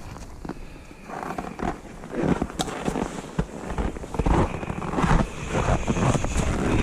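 Irregular clicks, knocks and rustling of hands working a rope and wrench at a snowmobile's clutch, with no engine running.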